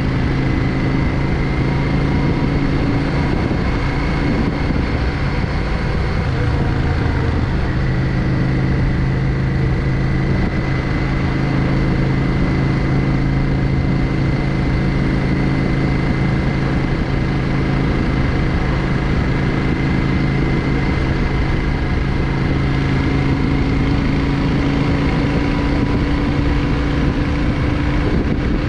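Yamaha XVS 650 Drag Star's air-cooled V-twin engine running steadily while the motorcycle cruises on the road, its note rising slightly over the last few seconds.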